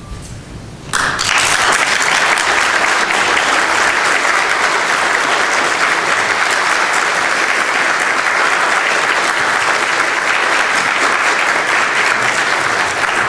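Congregation applauding steadily, breaking out suddenly about a second in, at the end of a dance performance.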